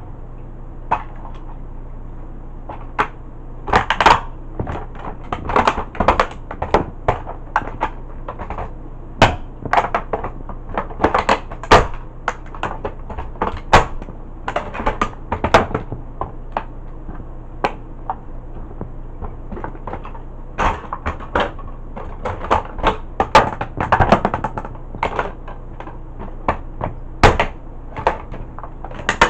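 Cowboy boots stomping and grinding on a plastic toy tow truck, its plastic cracking, snapping and crunching in a long run of sharp irregular cracks. The cracks are sparse for the first few seconds, then come in quick clusters.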